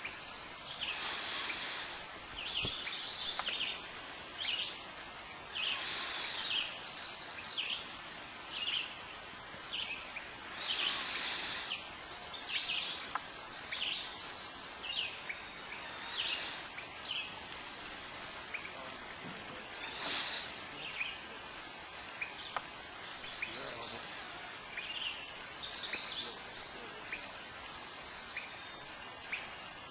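Songbirds singing in the lakeside woods: short high chirping phrases that repeat every second or so, over a low steady hiss.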